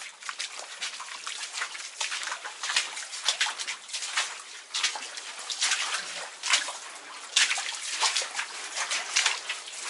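Rubber boots splashing and sloshing through shallow water on a sandstone cave floor, in quick irregular steps.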